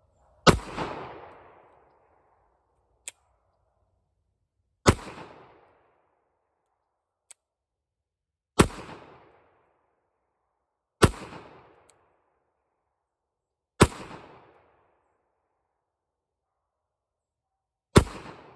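Six pistol shots from a Kimber Warrior SOC, a .45 ACP 1911, fired slowly a few seconds apart. Each sharp report trails off in a short echo.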